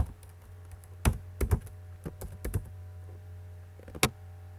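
Computer keyboard keys being typed in short, irregular strokes, a few quick taps at a time, with a steady low hum underneath.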